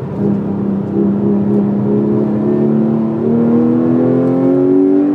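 Porsche 911 GT3 RS 4.0's naturally aspirated 4.0-litre flat-six accelerating hard, heard from inside the cabin, its pitch rising steadily through the revs in one gear.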